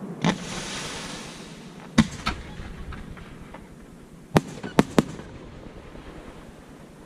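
Fireworks display with aerial shells bursting in sharp bangs, about six in all. The first is followed by about a second of crackling hiss, two more come close together, and a quick run of three comes a little past the middle.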